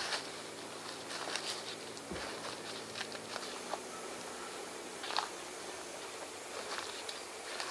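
Scattered light crackling and rustling, a few short clicks every second or so, over a faint low hum that stops about three and a half seconds in.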